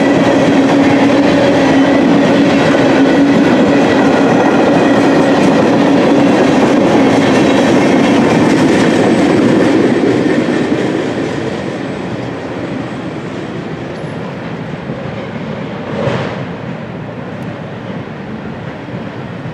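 Freight train flatcars rolling past on steel wheels: a loud clatter of wheels over the rail joints with a steady ringing hum. About ten seconds in the last car passes and the sound drops off, fading as the train runs away into the distance.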